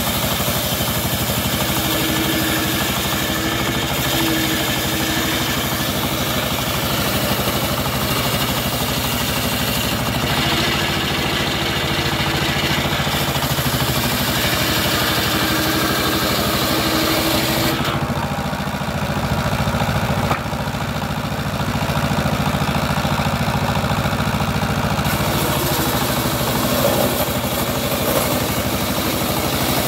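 Single-cylinder stationary diesel engine running steadily, driving a table circular saw that rips a hardwood sonokeling (Indonesian rosewood) plank. The high cutting noise of the blade drops away for several seconds in the second half, then comes back while the engine keeps running.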